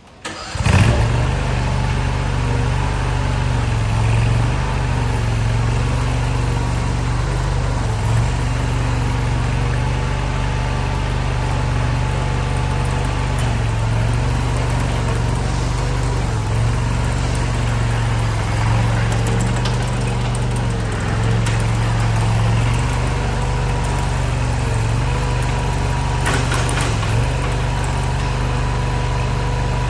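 Compact tracked skid steer loader's engine comes in abruptly about half a second in and then runs steadily, with small rises and falls in speed.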